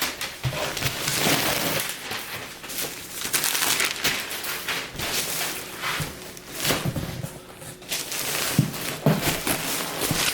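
Packaging being handled: irregular rustling and crinkling of plastic and cardboard, with a few light knocks.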